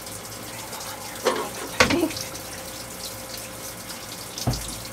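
Cupfuls of bilge seawater tipped into a stainless steel galley sink, splashing a couple of times about one to two seconds in, over a steady rush of water. A low thump near the end.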